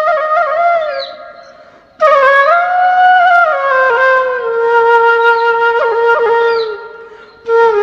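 Background music: a solo flute melody in long held notes that slide from pitch to pitch. The phrases fade away and a new one starts about two seconds in, then again near the end.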